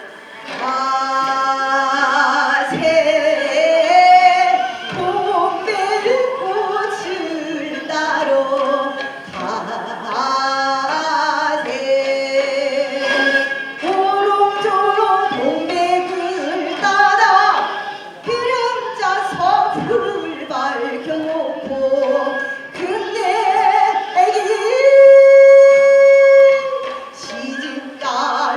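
A woman singing a Korean sinminyo (new folk song) in the traditional sori style, with musical accompaniment. Near the end she holds one long, steady note.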